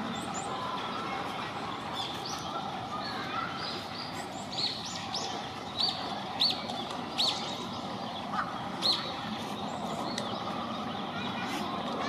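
Japanese white-eye calling: a loose series of short, high chirps, loudest and most frequent from about four to nine seconds in, over steady background noise.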